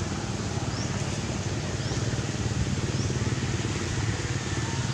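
Steady low rumble of outdoor background noise, with a few faint, short, rising high chirps at irregular gaps.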